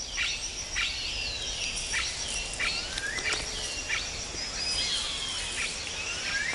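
Amazon rainforest ambience: many short bird chirps and rising and falling whistles, several a second, over a steady high insect buzz.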